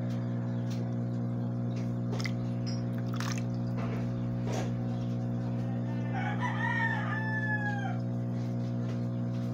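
A rooster crows once, about six seconds in, a single call of around two seconds that falls in pitch at its end, over a steady low hum; a few brief clicks come before it.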